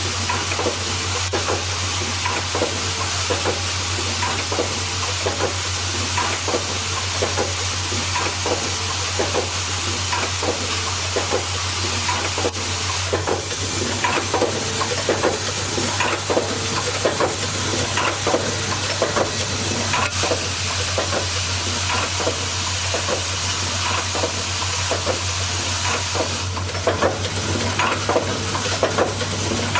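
Automatic welding and assembly machine for MCB bimetal support frames running continuously: a steady low hum under a hiss, with a rapid, irregular clatter of small clicks and ticks from the parts being fed and worked.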